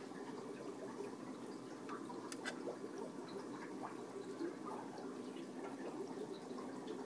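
Aquarium water bubbling and trickling steadily, with scattered small pops and a sharp tick about two and a half seconds in.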